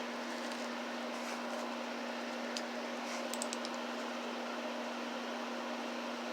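Steady background hum with a single constant tone, over a low hiss. A few faint, light clicks come about two and a half to three and a half seconds in.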